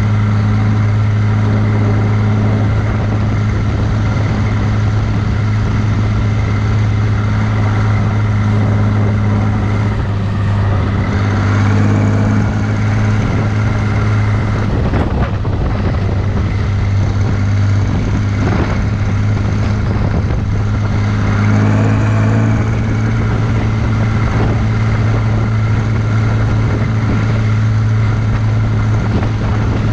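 John Deere 3140 tractor's six-cylinder diesel engine running steadily on the road while pulling a trailer. Its pitch rises briefly about ten seconds in and again about twenty-one seconds in. A few knocks are heard along the way.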